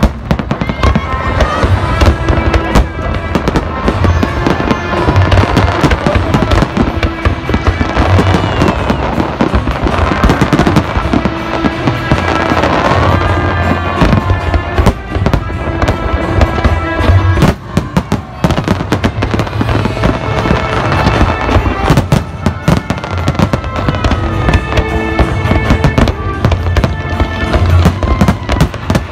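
Aerial fireworks display: a dense, continuous run of shell bursts and bangs with crackling, over music with a pulsing low beat.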